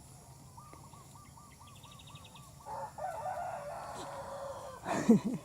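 Rooster crowing: one long crow lasting about two seconds, starting about halfway in, after a run of about ten short, evenly repeated bird calls. Near the end comes a brief, louder, low-pitched call.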